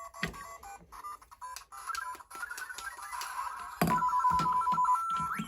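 Lego Super Mario interactive Peach figure's built-in speaker playing electronic game beeps and quick jingle snippets, with a rising glide near the end. A few short knocks of the figure on the plastic bricks come in between.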